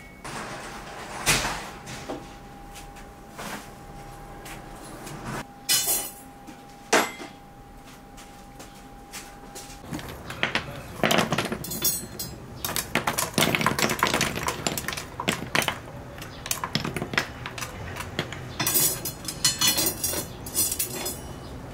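Kitchen clatter: dishes and utensils being handled, with scattered knocks and clinks that come thicker and busier in the second half. A faint steady whine stops about halfway through.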